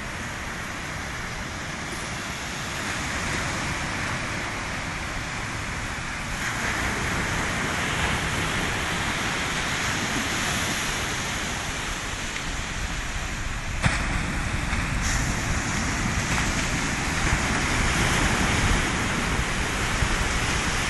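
Small surf breaking and washing up a sandy beach, a steady rushing noise, with wind buffeting the microphone in an uneven low rumble that grows stronger toward the end. There is a single brief click about 14 seconds in.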